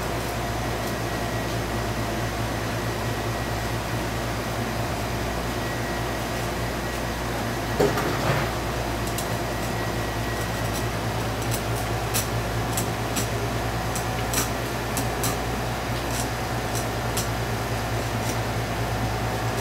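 Heavy bone-cutting knife chopping across a pike conger's flesh and fine bones onto a cutting board (honekiri): short, crisp cuts, about two a second, starting a little past halfway. Under it runs a steady low machine hum, with a single louder knock about eight seconds in.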